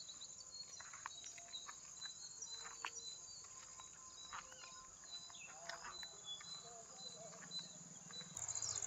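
Faint, steady high-pitched trilling of insects such as crickets, with scattered faint ticks and chirps. Near the end a louder, evenly pulsing trill sets in.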